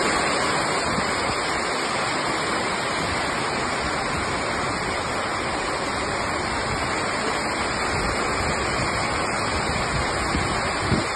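Torrential storm rain pouring down in a loud, steady rush, water streaming off a covered taxi-rank roof onto parked cars. A brief knock near the end.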